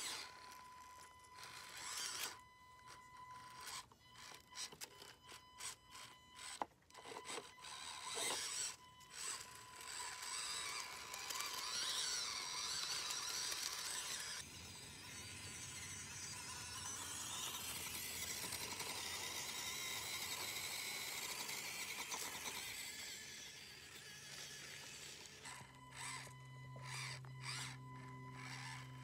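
Axial SCX24 Jeep JL 1/24-scale RC crawler's small electric motor and gears whining in stop-start spurts as it crawls over dry leaves and twigs, with some scraping.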